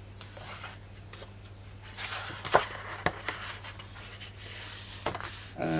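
Sheets of scrapbook paper rustling and sliding as the pages of a paper pad are handled and turned, with a few light taps and ticks.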